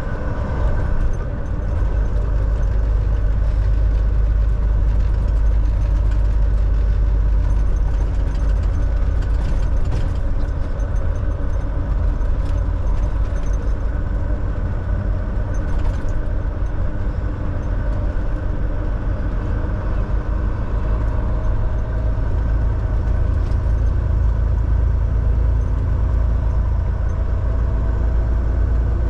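Volvo semi-truck's diesel engine and tyres running steadily while driving on the road, a continuous low drone with no gear changes or bursts.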